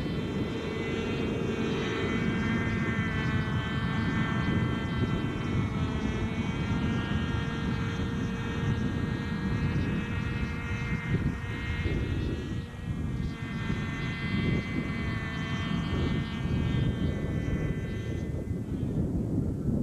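550-size radio-controlled NOTAR (no-tail-rotor) model helicopter running as it hovers low: a high engine whine whose pitch wavers up and down with the throttle, over a steady low rumble. The whine fades near the end.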